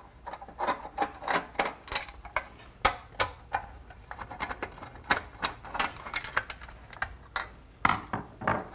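Screwdriver taking two screws out of a stainless steel rough-in box: irregular metallic clicks and ticks of the tool and screws against the sheet metal.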